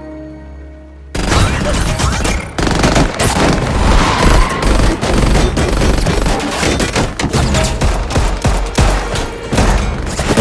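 Quiet film score, then about a second in a sudden, sustained barrage of rapid gunfire, many shots close together, with music underneath.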